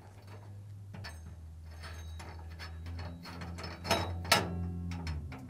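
Fisher & Paykel dryer drum bearing bolt being turned out with a 5 mm Allen wrench: light metallic clicking and scraping, with two sharper clicks around four seconds in, over a low steady hum.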